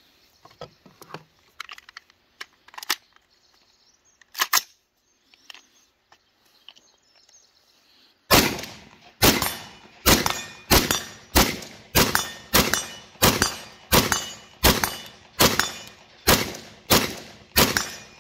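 AR-15 rifle fired semi-automatically in a steady string of about fifteen shots, roughly one and a half per second, starting about eight seconds in, each shot with a short echoing tail. Before the shooting there are a few small handling clicks, with one sharper click about four and a half seconds in.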